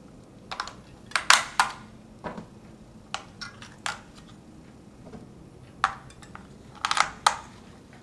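New batteries being fitted into the battery compartment of a DSC Alexor wireless alarm keypad: a series of short, sharp clicks and knocks, some in quick clusters of two or three.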